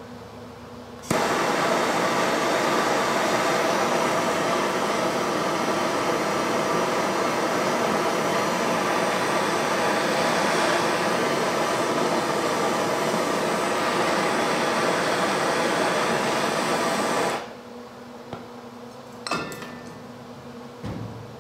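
Handheld gas torch lit about a second in and burning with a steady, loud hiss for about sixteen seconds while it heats the valve grinder's spindle housing, then shut off suddenly. A few light clicks and knocks follow near the end.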